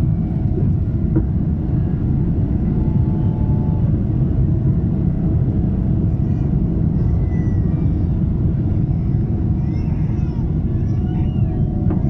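Cabin noise of a Boeing 777-300ER in its initial climb just after takeoff: the steady deep rumble of its GE90-115B engines at takeoff power, heard from a window seat over the wing.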